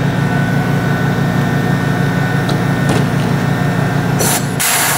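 Pneumatic rivet gun setting an aluminium pop rivet into the bus's bottom side rail: two sharp bursts of air hiss near the end as the gun pulls the rivet. Under it runs a steady, pulsing low machine hum.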